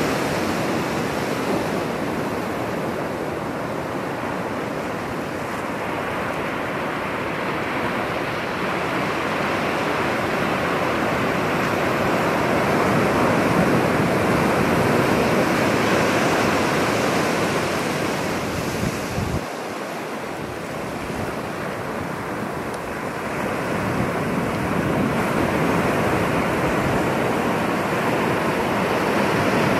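Ocean surf breaking and washing up the beach, a steady rushing noise that swells and eases with the waves.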